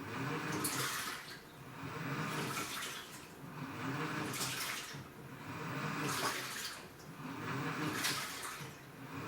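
Washing machine agitating a load in water: water churning in regular swells of about one every two seconds, each with the low hum of the motor as the drum turns back and forth.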